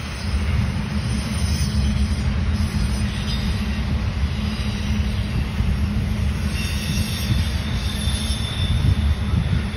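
Norfolk Southern intermodal freight train's cars rolling past: a steady low rumble, with faint high-pitched wheel squeal in the second half.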